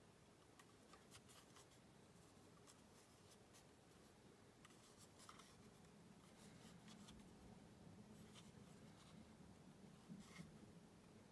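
Near silence: faint room hiss with soft clicks scattered irregularly through it.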